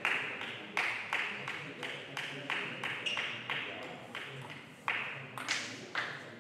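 Table tennis rally: the ball clicking sharply off the table and the rackets in turn, about three hits a second, with a short break about four seconds in and then a few harder hits near the end.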